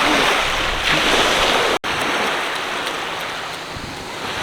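Small sea waves breaking and washing up a sandy beach, loudest at the start and again about a second in, then a steady easing wash.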